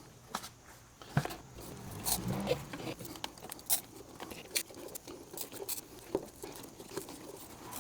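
Tape being pulled off the roll and wrapped around a wiring harness, making irregular sharp crackles and ticks with some handling rustle.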